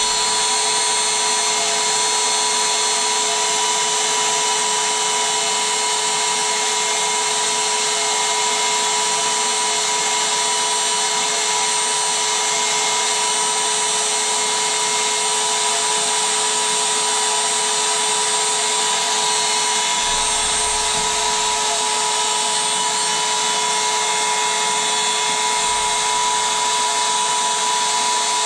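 Electric air pump running steadily, inflating an inflatable, with a constant whine over a rushing hiss. Two brief low rumbles come about two-thirds of the way through and again near the end.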